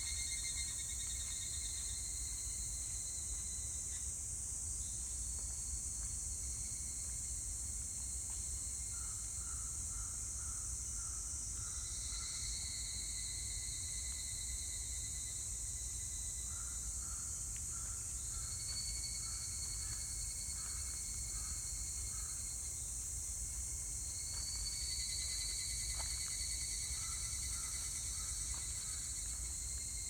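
Higurashi cicadas (Tanna japonensis) calling in overlapping bouts, each a high pulsing trill lasting several seconds, a new one starting about every six seconds, over a steady high-pitched hiss.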